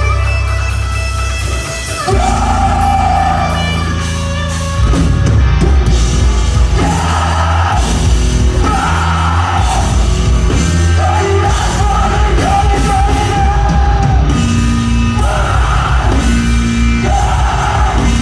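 Rock band playing live: a singer sings and yells phrase by phrase over distorted guitars, heavy bass and drums, and the band gets louder about five seconds in.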